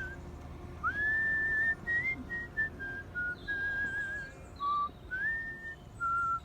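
A person whistling a melody by mouth in the style of artistic concert whistling, one clear pure tone at a time. The phrases move through short notes, with a few upward slides into longer held notes, including one about a second in, and a slight waver on the held note near the end.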